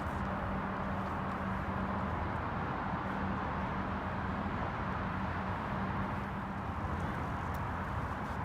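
Steady road traffic noise: a continuous even hum of passing cars with a low engine drone underneath.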